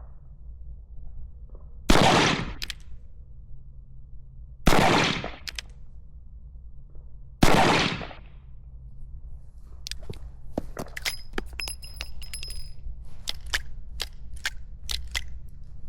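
Three shots from a Schofield top-break single-action revolver, about three seconds apart, each with a brief echo. After them comes a run of metallic clicks and clinks as the revolver is broken open and the spent cases are ejected.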